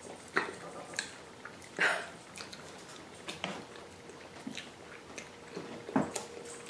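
Close-up chewing and wet mouth sounds of someone eating rice and meat curry, with small irregular clicks and smacks. A faint steady hum comes in about five seconds in.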